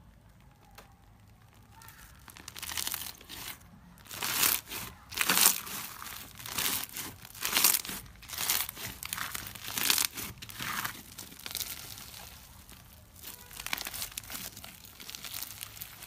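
Blue crunchy slime packed with small clear beads being squeezed and stretched by hand, crackling and popping in bursts about once a second, starting about two seconds in.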